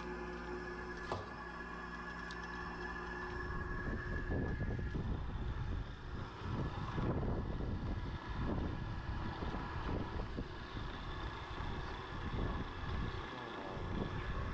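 A steady machine hum for about the first three and a half seconds, then uneven, gusting wind rumble on the microphone.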